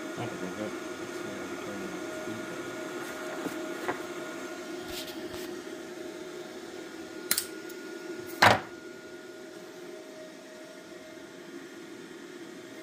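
Steady hum of a running Bestarc MIG145 welder, broken by a few sharp snaps, the loudest about eight and a half seconds in.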